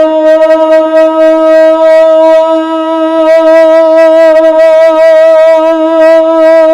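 A male naat reciter's voice holding one long sustained note with a slight vibrato, unbroken and loud, amplified through a stage sound system.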